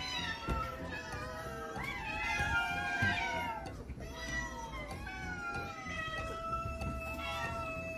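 Cat meowing in long, drawn-out calls: the first bends up and down in pitch, and the second is held at a near-steady pitch.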